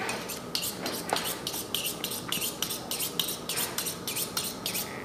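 A knife blade being honed on a sharpening steel: a quick, even run of short metal-on-metal scraping strokes, about four a second.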